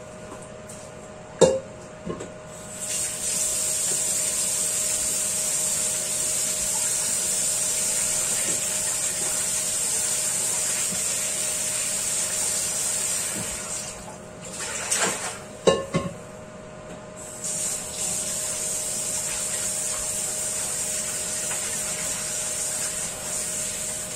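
Kitchen tap running into a wok in the sink as it is rinsed and scrubbed. The water starts a few seconds in, stops for a few seconds past the middle, then runs again. Sharp metal clanks come just before the water starts and again during the pause, over a steady hum.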